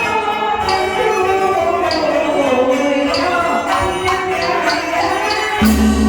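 Live Teochew opera ensemble music: a wavering melody over regular, sharp percussion strikes. A steady low hum suddenly joins near the end.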